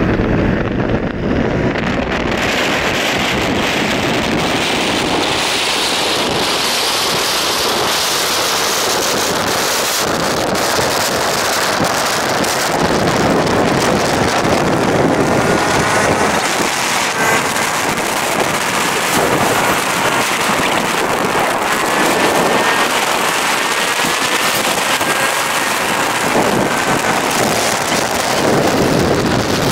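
Heavy, steady wind rushing over the microphone of a phone carried on a moving motorbike at highway speed.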